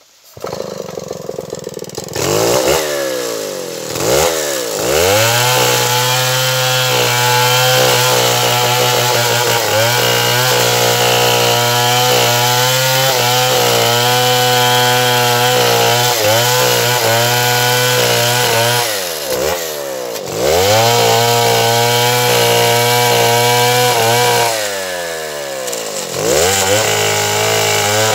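Stihl 070 two-stroke chainsaw sputtering into life, then revved up and held at high speed for long stretches, as in a cut with a log mill through acacia wood. Three times it drops toward idle and revs back up.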